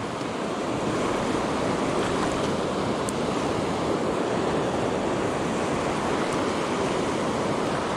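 Mountain river current rushing steadily over rocks, a constant even roar of moving water.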